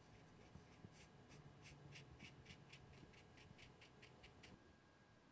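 Faint, quick strokes of a watercolour brush across paper, about three or four a second, stopping about four and a half seconds in.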